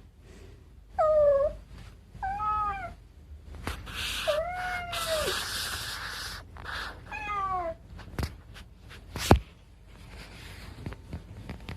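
Domestic cat meowing four times, each meow falling in pitch at its end, the third one longer. Rustling and a few sharp clicks come in between, with a loud click about nine seconds in.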